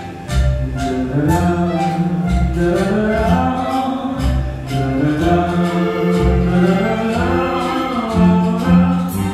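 A live band playing, a concert flute carrying the melody over a steady beat.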